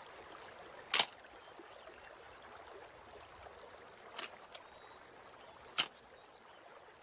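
Stream trickling steadily in a quiet forest, with a few short sharp clicks: one loud click about a second in and fainter ones a little after four seconds and near six seconds.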